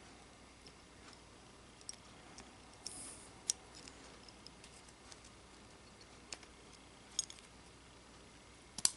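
Small steel musket-lock parts and tools clicking and tapping now and then as the lock is put back together: a few light, scattered clicks, the sharpest about three and a half seconds in and just before the end.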